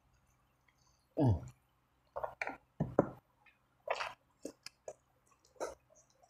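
Close-up eating sounds of a person biting and chewing sauce-coated fried chicken: irregular wet smacks and squelches of lips, teeth and sauce. About a second in there is a brief loud sound that slides down in pitch.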